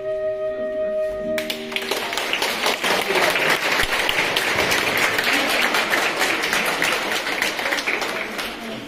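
Live music ending on a held chord, then an audience applauding for several seconds, the clapping thinning out near the end.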